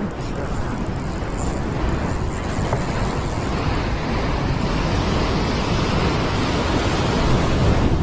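Heavy ocean swell surging and breaking against the rocks, growing louder until a big wave crashes into spray near the end, with wind buffeting the microphone.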